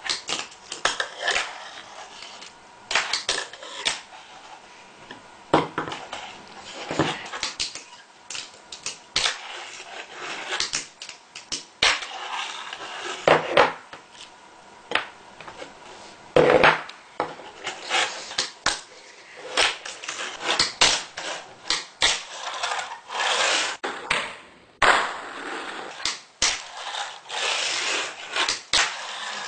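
A fingerboard (miniature finger skateboard) ridden and flipped on a wooden tabletop. Its deck and wheels make irregular clacks and taps against the wood, with short rolling scrapes of the wheels in between.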